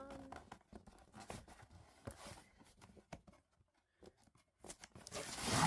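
Packaging being handled while a box is opened: scattered light taps and rustles, then a louder rasping tear near the end.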